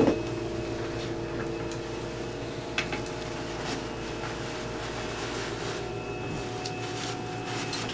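Electric motor of a powered exam chair running with a steady hum that stops at the end, with a few light crinkles of a paper drape over it.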